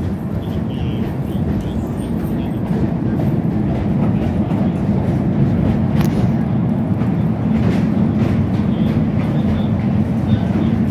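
Wheels of a 12-inch-gauge miniature railway passenger train rumbling along the track as it runs into a metal-clad carriage shed, getting louder about four seconds in, with a single sharp click about six seconds in.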